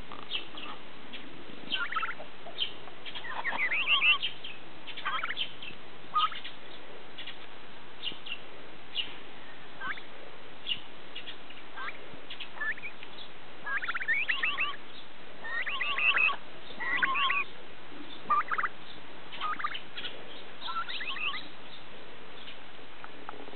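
White domestic turkey hen calling with short, high-pitched peeps, scattered throughout, with quicker runs of calls about four seconds in and again around the middle.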